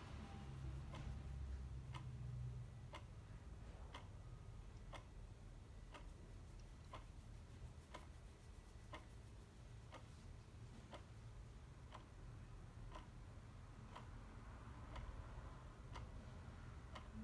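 Clock ticking steadily and faintly, about two ticks a second, over a low hum.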